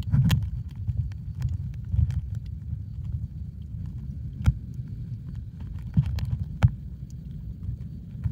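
Muffled underwater rumble of water surging around a submerged camera, louder at first and then settling, with scattered faint clicks and a few sharper clicks toward the middle and later on.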